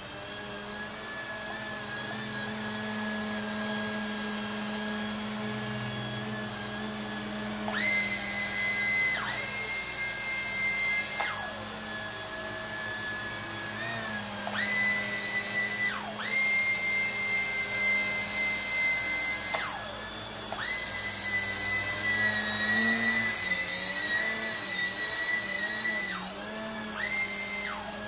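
JJRC Dusk 4-channel micro RC helicopter in flight: its small electric motors whine steadily with the rotors, the whine jumping sharply higher and louder about five times as throttle is added, holding a few seconds, then dropping back.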